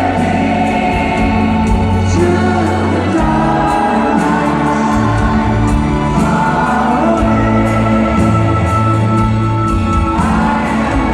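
Live band playing a slow song with singing in long held notes, the voices sounding choir-like.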